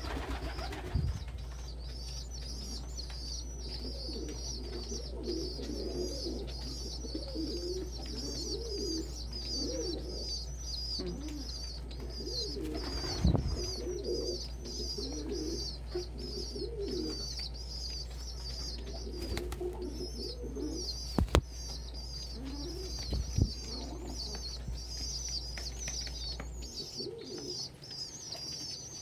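Domestic pigeons cooing in repeated phrases over a constant high, rapid peeping of young squabs, with a few sharp knocks. A steady low hum underneath cuts off near the end.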